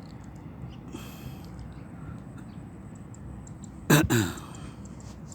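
Steady low background noise with faint clicks; about four seconds in, a short, loud vocal sound from a person, falling in pitch.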